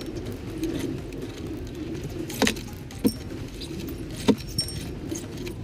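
Steady low rumble of a Jeep Wrangler driving slowly over a rough gravel trail, heard from inside the cabin, with three sharp knocks in the middle as it jolts over the uneven ground.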